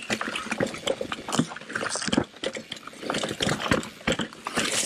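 Mountain bike descending a rough dirt and rock trail: tyres crunching over the ground and the bike rattling in rapid, irregular clicks and knocks.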